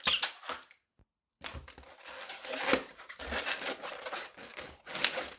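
Inflated latex balloons rubbing and squeaking against each other and the hands as a twisted balloon frame is handled, in irregular bursts, with a brief gap about a second in.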